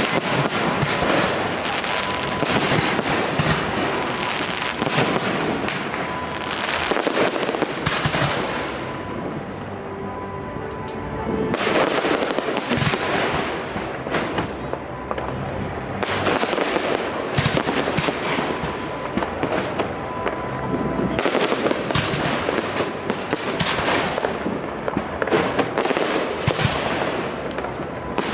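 Aerial fireworks display: a dense, continuous barrage of bangs and crackling, thinning briefly about ten seconds in before building up again.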